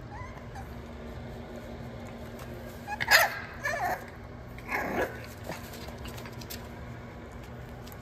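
French bulldog puppy barking three short times, about three seconds in, the first bark the loudest, over a steady low hum.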